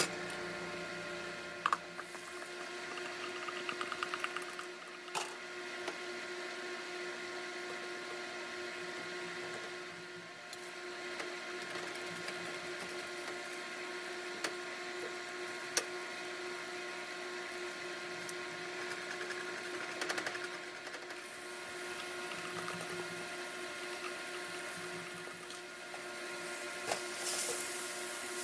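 Food frying in a nonstick pan over a steady motor hum, with a few sharp clicks of a spatula against the pan. Near the end there is a louder burst of sizzling as more food is tipped into the hot pan.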